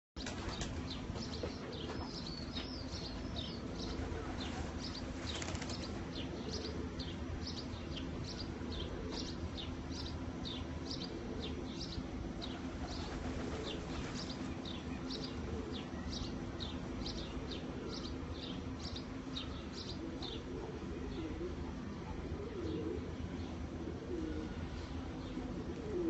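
Iraqi domestic pigeons cooing in low, wavering calls that are clearest near the end, while a small bird chirps high and repeatedly, about twice a second, through most of the time.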